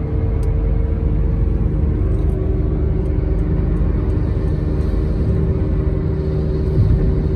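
Road noise heard inside a car's cabin while driving at highway speed: a steady low rumble of tyres and engine with a faint even hum.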